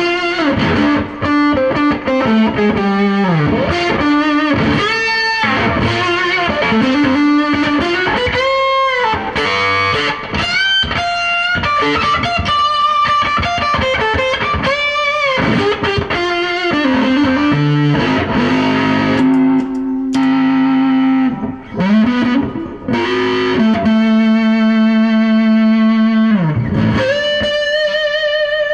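Electric guitar played through a fuzz pedal: a single-note lead line with many string bends and a few long sustained notes.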